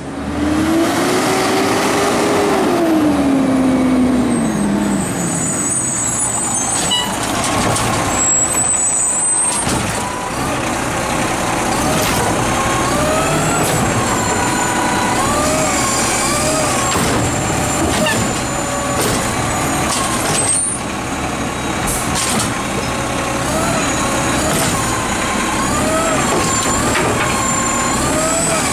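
Automated side-loader garbage truck working at the curb. The engine revs and the hydraulic whine rises and falls repeatedly as the arm lifts and tips a cart. There are a few short knocks, and the engine note swells and falls away in the first few seconds.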